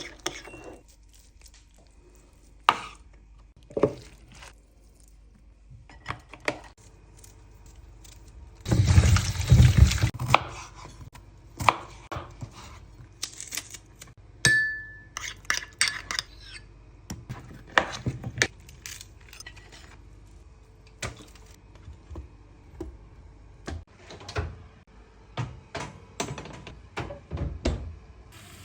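Dishes, pots and cutlery being handled: scattered clinks and knocks throughout, with a louder noisy scraping stretch lasting a second or two about nine seconds in, and a brief high tone about halfway through.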